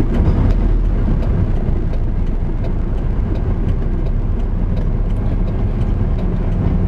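Steady rumble of a moving vehicle: engine and road noise while driving in traffic.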